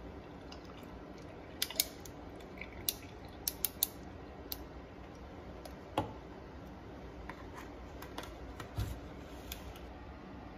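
Scattered light clicks and small knocks of ice cubes in a glass and a plastic milk jug being handled, over a faint steady hiss. A slightly heavier knock comes about six seconds in.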